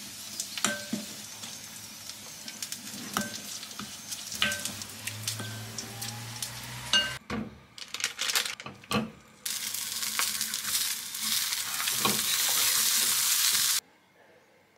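A wooden spoon stirs kimchi chili paste in a glass bowl, with light clicks against the glass about once a second. Then a block of thick fried tofu sizzles in oil in a frying pan, a steady loud hiss that cuts off abruptly near the end.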